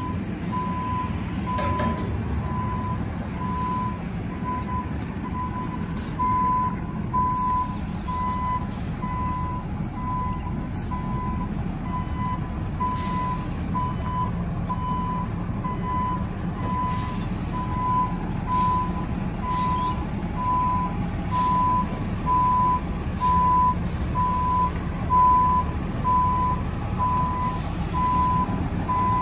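Front-end loader garbage truck reversing: its backup alarm beeps at one steady pitch in an even, repeating rhythm over the low, steady running of the diesel engine.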